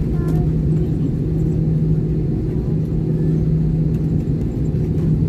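Cabin noise of an airliner taxiing after landing: its jet engines running at taxi power under a steady low rumble with a constant hum.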